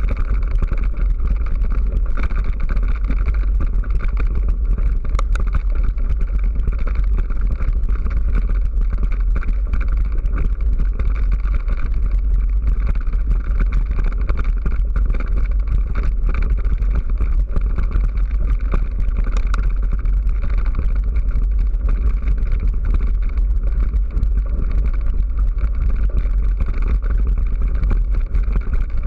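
Mountain bike rolling over a gravel track, heard through the rider's action camera: steady loud wind rumble on the microphone with the rattle and crunch of tyres on loose stones.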